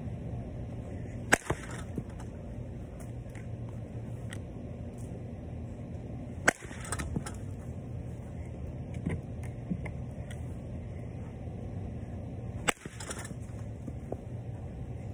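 Softball bat hitting softballs off a batting tee: three sharp cracks about six seconds apart, each followed by a brief rattle, over a steady low hum.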